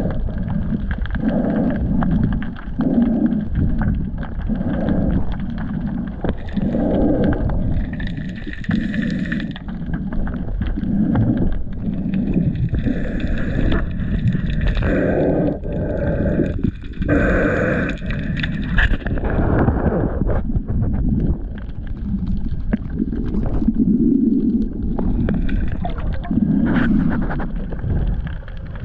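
Muffled water sloshing and rushing around an action camera underwater, with a rhythmic pulse about once a second and a few louder swells later on.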